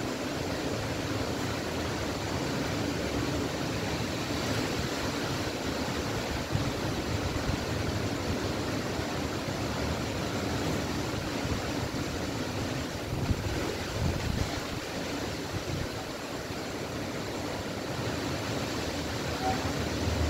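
Strong dust-storm wind blowing steadily through trees and palms, with a low, uneven rumble of wind buffeting the microphone.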